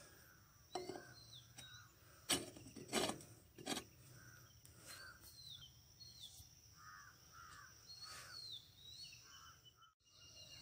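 Birds calling outdoors: repeated short calls and high descending chirps, some crow-like. Three louder knocks or rustles come between about two and four seconds in.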